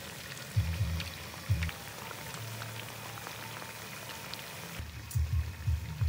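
Food deep-frying in a wide pan of hot oil: a steady sizzle dotted with small crackles. Background music with low, pulsing bass notes plays over it and is the loudest part.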